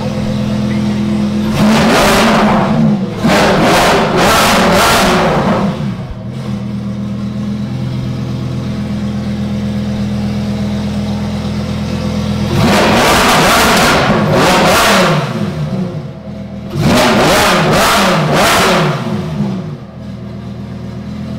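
A car engine idling, then revved in three sets of quick throttle blips, settling back to a steady idle between them.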